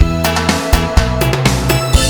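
Background music with a steady beat: keyboard and synth chords over a regular drum pulse.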